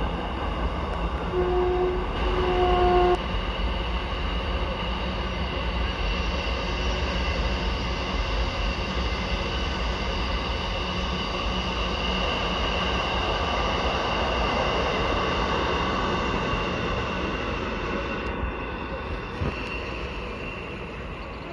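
Container freight train's wagons rolling past with a steady rumble and rattle. About 1.5 s in, a train horn sounds two short blasts. Near the end the sound fades as the last wagons and brake van go by.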